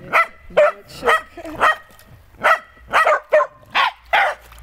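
Wire-haired dachshund puppy barking: about nine short, high barks at roughly two a second.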